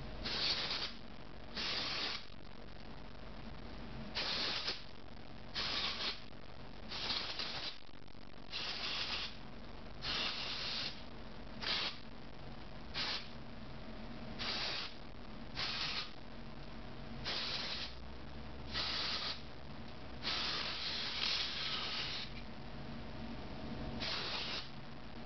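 A pressurised spray can being fired in short puffs, giving a hiss about every second and a half, with one longer spray near the end. A steady low hum runs underneath.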